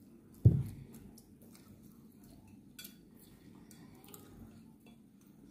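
A dull thump about half a second in, then faint clinks and scrapes of a metal spoon against a ceramic plate of rice, with quiet chewing.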